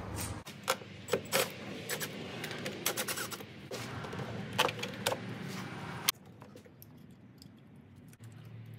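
Clicks, taps and rattles of hands working on a car's ignition coil pack and its wiring in the engine bay. The sharp clicks come thick for about six seconds, end on a louder snap, and then only fainter ticks follow.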